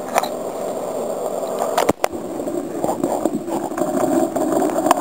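Handling knocks and scraping against a white plastic tub, a few sharp knocks over a steady rushing noise.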